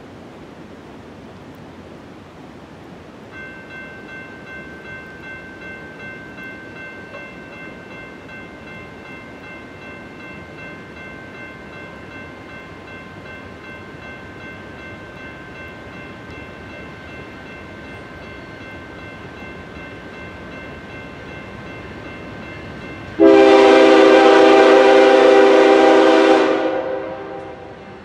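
Air horn of an approaching freight train's lead diesel locomotive, a BNSF GE ES44DC, sounding one long chord blast that starts suddenly near the end and fades after about three and a half seconds. Before it, faint steady high tones hold over a steady background hiss.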